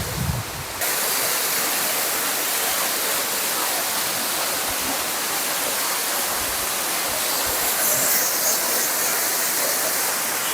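Waterfall: a steady, even rush of falling water, beginning just under a second in after a brief low rumble.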